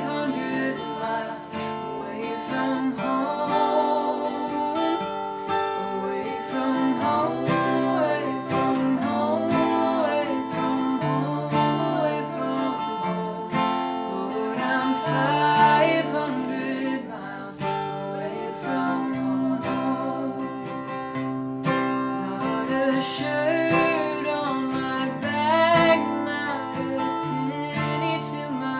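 Acoustic guitar music: strummed chords carrying a slow melody line that wavers in pitch.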